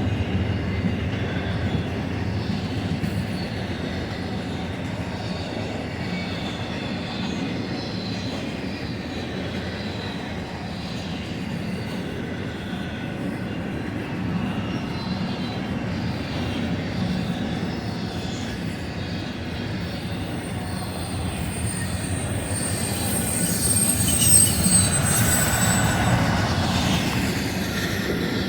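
BNSF intermodal freight train rolling past, a steady rumble of wheels on rail. From about 20 seconds in, a thin high wheel squeal sets in for several seconds, drifting slightly lower in pitch.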